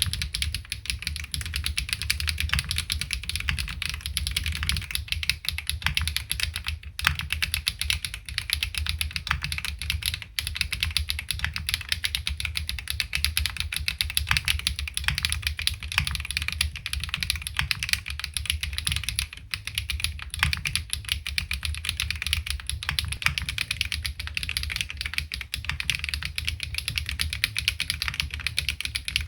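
Fast, continuous typing on a LINWORKS ORCA65 65% bottom-mount custom mechanical keyboard with HMX Duck Duck linear switches, a PC plate and no foam: a dense stream of keystroke clacks with only a brief let-up a little past the middle.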